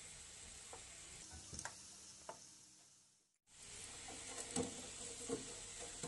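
Blanched almonds frying in hot oil in a stainless steel pan: a soft, steady sizzle with a few light clinks of a metal skimmer against the pan. The sound fades out a little after three seconds in and comes back half a second later.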